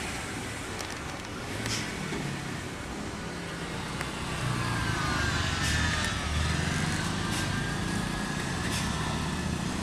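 Motor vehicles running: a small MPV driving slowly past close by and a heavy self-loader truck's diesel engine running as it gets ready to descend a steep slope. The rumble grows louder about halfway through, with a faint whine over it.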